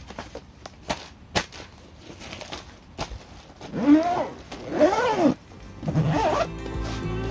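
A few light knocks and clunks as the titanium stove parts settle in a padded carry bag, then the bag's zipper is pulled shut in about three strokes, each a buzz that rises and falls in pitch. Music starts near the end.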